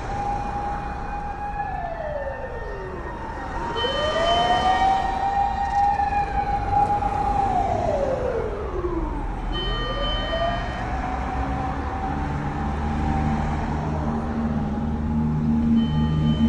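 Fire engine siren wailing: the pitch holds high, slides down and rises back up twice. A low engine rumble builds under it over the last few seconds.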